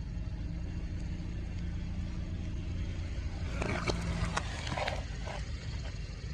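A car engine running at low speed with a steady low rumble. From about three and a half seconds in, a run of crackling and crunching comes as an object is crushed under the tyre.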